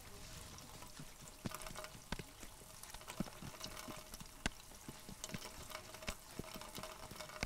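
Hand-making of yufka flatbread: irregular light clicks and taps of wooden rolling pins and dough on round wooden boards, with faint crackling, under a thin steady hum.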